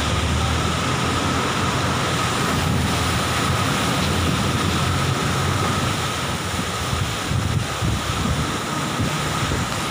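Muddy river in heavy flood, fast turbulent water rushing and churning in a steady wash of noise, with wind buffeting the microphone.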